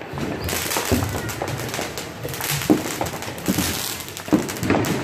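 Music playing, with scattered sharp cracks and thuds through it.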